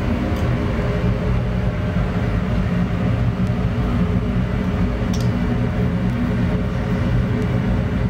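Steady machine hum made of several held low tones, with one small tick about five seconds in.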